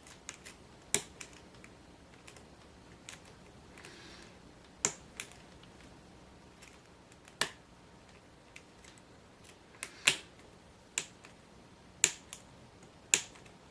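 Lock picking on a Grainger 1XRV5 padlock with spool pins: the pick and tension wrench make irregular sharp metallic clicks and fainter ticks in the cylinder, about eight loud clicks spread over the stretch.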